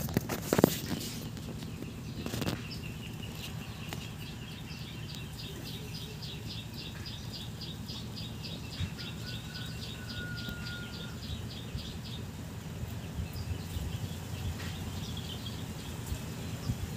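Close rustling and handling noise as a hand pets a tabby kitten on dry leaves, with a few sharp knocks in the first second as the phone moves. Partway through, a rapid run of high chirps, about four a second, sounds in the background for several seconds.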